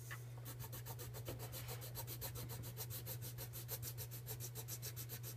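Pencil crayon shading back and forth on paper, a fast, even run of scratchy strokes, over a steady low hum.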